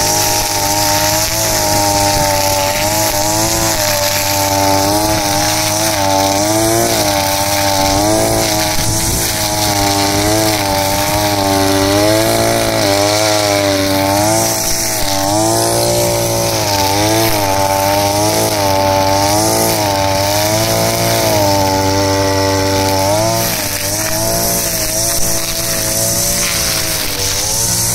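Small two-stroke petrol brushcutter engine running, its speed rising and falling over and over as the throttle is worked.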